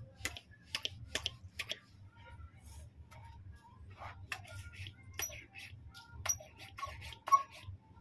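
Scattered light clicks and small clinks, about one or two a second, a few of them with a brief metallic ring, over a low steady hum.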